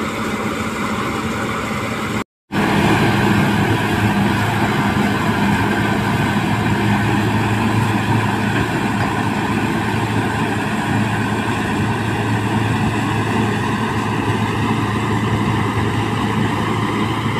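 Sonalika DI 750 tractor's diesel engine running steadily under load, powering a Dasmesh straw reaper as it chops wheat stubble into bhusa and blows it into a trailer. The sound breaks off for a moment about two seconds in, then continues unchanged.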